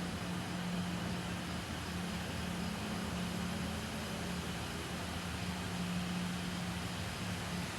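Steady background noise: an even hiss with a low, unbroken hum underneath, with no change throughout.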